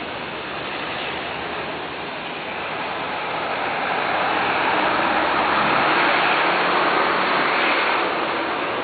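Street traffic noise as a vehicle passes, swelling over a few seconds and then fading.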